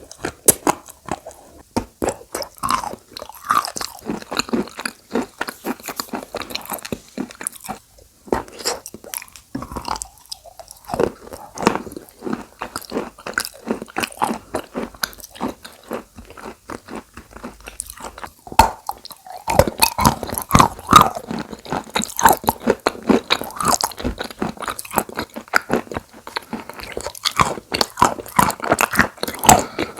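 Close-miked biting and chewing of chalk coated in Turkestan clay paste: dense, dry crunching and crackling in quick clusters, with short pauses between bites.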